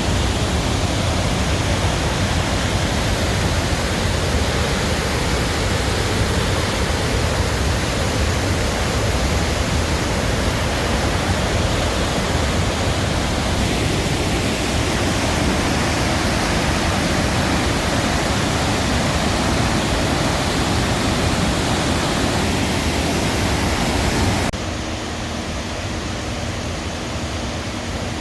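Loud, steady rush of swollen floodwater pouring over a waterfall. Near the end the rush drops to a quieter level.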